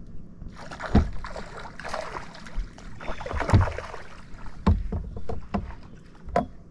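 Water splashing and several sharp knocks against a fishing boat's hull while a hooked smallmouth bass is fought at the boat. The splashing is heaviest in the first few seconds, and the knocks come irregularly.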